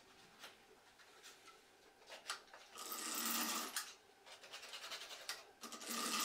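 Faint handling noise from hands and a tool working the taut wires of a wooden beehive frame: a few small clicks, then two rough rubbing, scraping stretches about a second long, the first about three seconds in and the second near the end.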